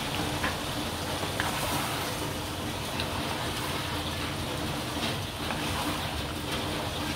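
Thick chicken and potato curry simmering in a pan as it is stirred: a steady bubbling hiss with a few faint spatula clicks against the pan.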